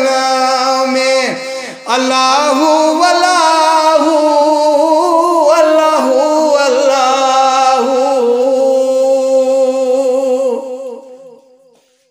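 A man singing a devotional song with musical accompaniment: long held notes with ornamented, wavering pitch. It breaks off briefly about a second and a half in, then fades out near the end.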